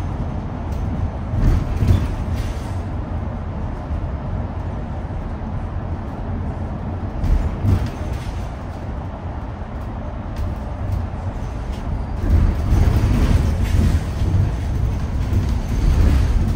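Ride noise inside a Mercedes-Benz eCitaro articulated electric bus under way: a steady low road rumble with a few knocks and rattles, growing louder about twelve seconds in.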